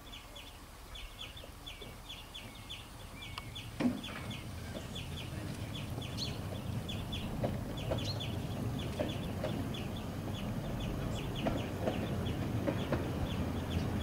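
A 12¼-inch gauge miniature train pulls out, with one knock about four seconds in and then a low rumble that grows louder as it rolls closer. Short high calls repeat several times a second the whole time.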